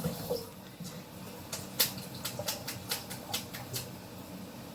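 A quick run of about ten light, sharp clicks, roughly three or four a second, starting about a second and a half in and stopping before the end.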